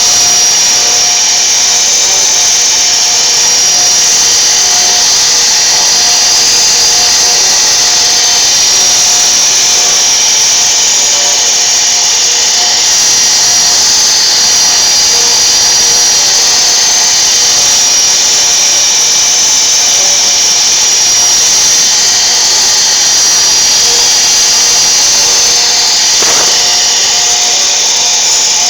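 CNC router spindle running with a steady high-pitched whine as the bit cuts wood, with lower tones that come and go beneath it as the machine moves.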